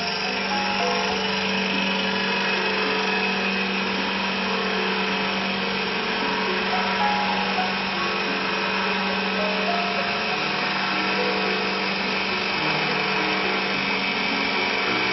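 Double-blade CNC wood lathe turning a wooden spindle: the machine runs with a steady hum while its cutters shave the spinning wood in a continuous rough whirr.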